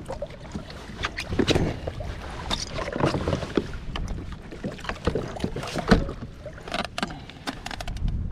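Irregular knocks, clatter and water sounds on a kayak, over a low rumble.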